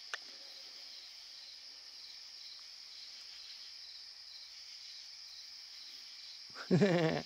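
Steady high-pitched chorus of night insects such as crickets, a constant drone. One sharp click just after the start, and a brief human vocal sound near the end.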